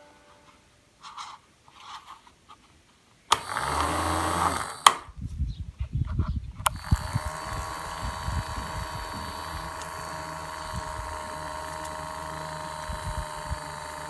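Small DC hobby motor of a homemade bottle-cap table fan spinning its plastic-bottle blade: a switch clicks, the motor starts suddenly about three seconds in, and after another click near the halfway point it runs with a steady whir. Irregular low rumbling sits under the steady running.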